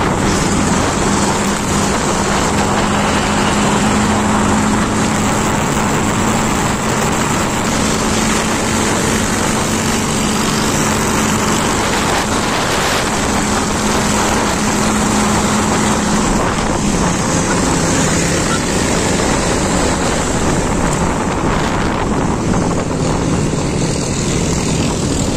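Motorcycle engine running steadily while riding in traffic, with heavy wind noise on the microphone over it.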